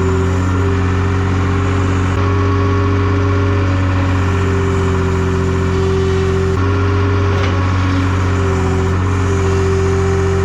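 Engine running at a steady speed, with no change in pitch, with abrupt shifts in the sound about two seconds in and again past the middle.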